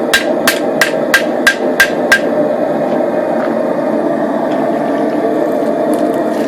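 Hand hammer striking a hot knife blade on a wet anvil, about three blows a second with a ringing note, seven blows in all that stop about two seconds in. The water on hammer and anvil instantly quenches the steel's outer layer, so the fire scale pops off. A steady rushing noise runs underneath.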